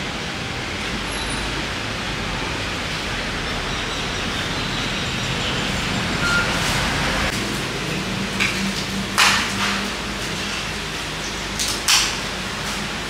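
Steady street traffic noise, with a vehicle engine humming from about eight seconds in and two short hisses near the end.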